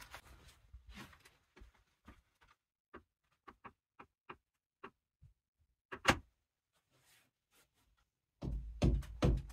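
A string of short light taps and clicks, then one louder knock about six seconds in. Near the end, a run of heavy low thumps in an even rhythm starts.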